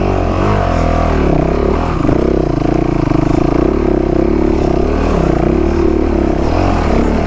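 Honda CRF450R dirt bike's single-cylinder four-stroke engine revving up and down repeatedly under load as it is ridden through deep, boggy mud.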